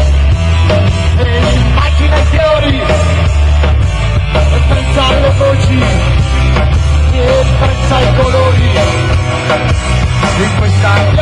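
Live rock band playing an instrumental passage: drum kit, bass, electric guitars and keyboard, loud and full, with a melodic lead line over a heavy bass.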